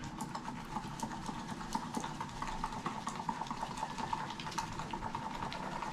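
Epoxy being stirred vigorously by hand in a container: a rapid, irregular run of small clicks and scrapes of the stirring stick, over a faint steady hum.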